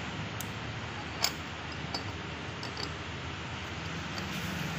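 A few light metallic clicks from a hand tool and steel parts being worked on a Swaraj 742 XT tractor's gearbox shaft, the sharpest about a second in, over a steady background hum.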